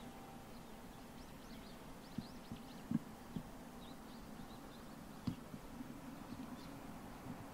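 Quiet outdoor ambience: small birds chirping in quick rising and falling calls over a faint steady low hum, with a few soft knocks about two, three and five seconds in.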